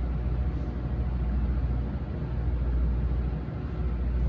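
Steady low mechanical hum of a large MEI hydraulic elevator running.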